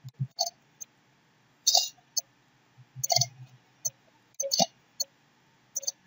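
Computer mouse and keyboard clicks: about a dozen short, sharp clicks at irregular intervals, with the loudest near 2 s, 3 s and 4.5 s.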